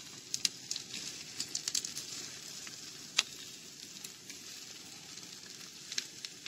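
Potatoes and diced onion frying in a pan with a steady sizzle, while a spatula stirs them, scraping and tapping against the pan; one sharper tap about three seconds in.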